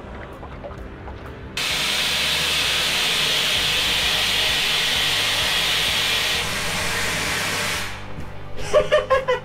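Compressed gas rushing out of a valve inside a small personal submarine: a loud, steady hiss that starts abruptly about a second and a half in and cuts off about eight seconds in.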